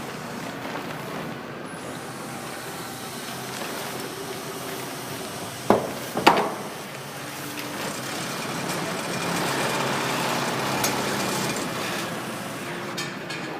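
Steady background noise with two sharp bangs, half a second apart, about six seconds in, and a hiss that swells and fades between about nine and twelve seconds.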